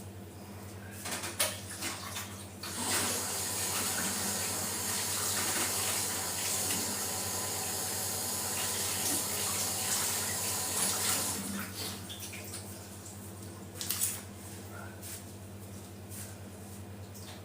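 Kitchen tap running into a sink for about eight seconds, starting about 3 s in and shutting off. There are a few short knocks of handling before it and one near the end.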